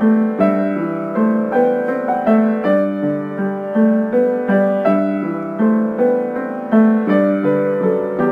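Piano music playing an even run of notes, about two or three a second, each one ringing and dying away.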